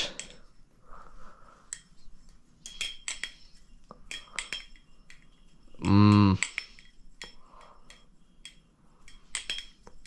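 Titanium-handled Maxace Petrel balisong on bushings being flipped: irregular sharp metallic clicks and clacks as the handles swing and knock together. About six seconds in comes a brief hummed voice sound, the loudest thing here.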